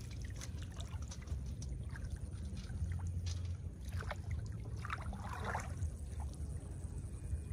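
Shallow field water sloshing and splashing in short, irregular bursts as someone wades and gropes in it by hand for snails, over a steady low rumble.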